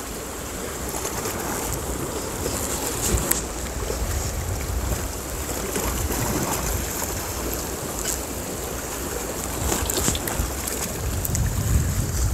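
Wind buffeting the microphone over the wash of surf against the rocks, with a few short sharp clicks.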